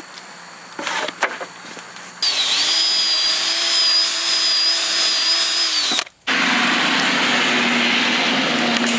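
Cordless drill boring into a wooden board: the motor speeds up about two seconds in, runs steadily with a high whine for about four seconds, then winds down. After a brief break, a steady mechanical running noise with a low hum carries on.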